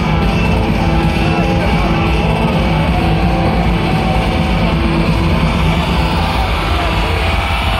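Loud music with heavy bass, steady and unbroken.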